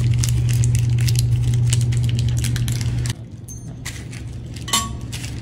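Small metal screws and fittings clicking and clinking as they are handled and sorted by hand, with a sharper click near the end. Underneath is a steady low hum that cuts off about three seconds in.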